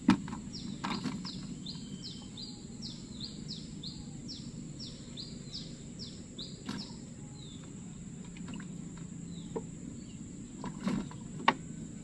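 A bird calling a quick series of short, repeated high chirps, about two a second, which stops around four and a half seconds in, over a steady high-pitched whine and a low outdoor hum. A few sharp knocks of handling in the boat, the loudest right at the start and two more near the end.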